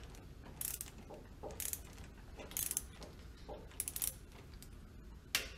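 Ratchet of a torque wrench clicking in short bursts about once a second as a Ford 9N tractor's head bolts are tightened in sequence, with one sharper click near the end.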